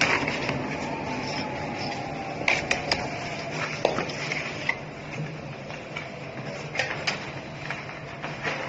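CNC carton sample cutting machine running, with a steady hum and a faint whine that falls in pitch over the first few seconds. Scattered sharp clicks and knocks come through, a cluster about two and a half seconds in and more near the end.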